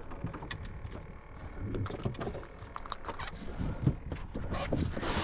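Offshore fishing-boat deck sounds: a steady low rumble of wind and water, with scattered short knocks and clicks of gear being handled.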